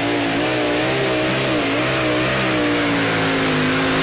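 Modified pulling tractor with three Keith Black V8 engines at full throttle under load while dragging the weight sled; the loud engine note wavers up and down in pitch.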